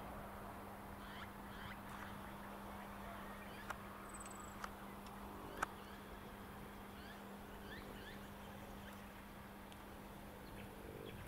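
Quiet rural outdoor ambience: scattered short chirping bird calls over a steady low hum, with three faint sharp clicks around the middle.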